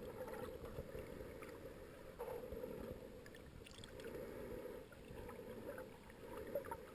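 Faint underwater ambience: a steady hiss with a swell of gurgling noise about every two seconds.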